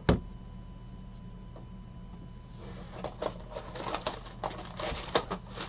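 One sharp knock, then from about two and a half seconds in, crinkling, scratching and tearing as the wrapping and cardboard of a trading-card blaster box are torn open by hand.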